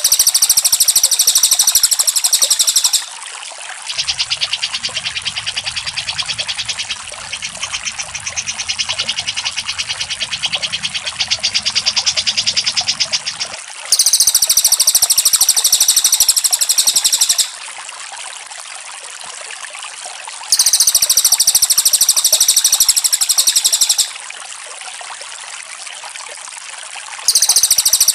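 Recorded cucak jenggot and cililin bird song: loud, high-pitched rapid trills in bursts of about three seconds, repeated four times. Between the first two bursts there is a quieter, fast chattering song, all over a steady trickling-water background.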